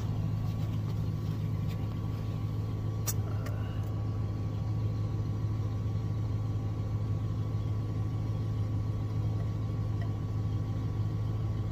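A steady low mechanical hum from a running motor or engine, unchanged throughout, with a couple of faint clicks about three seconds in.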